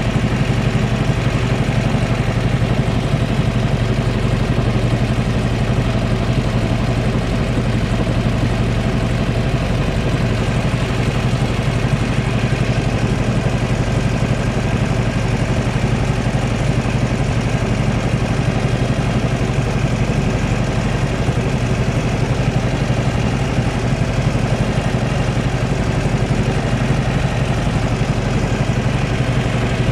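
Small tour boat's engine running steadily at an even speed, a constant low drone with no change throughout.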